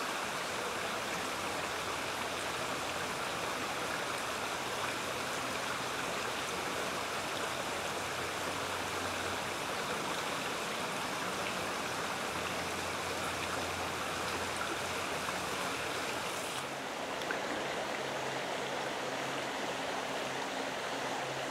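Creek water running steadily over a shallow riffle, a continuous rushing that turns a little duller about three-quarters of the way through.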